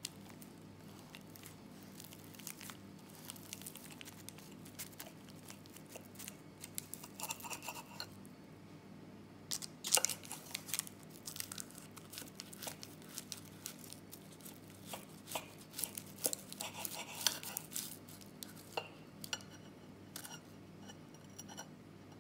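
Knife and fork cutting into a baked puff-pastry chicken pie: the flaky crust crackles and crunches in bursts, loudest about halfway through, with cutlery now and then clinking on the ceramic plate.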